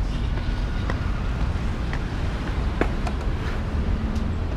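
Steady low outdoor rumble, with a few faint sharp clicks about one, two and three seconds in.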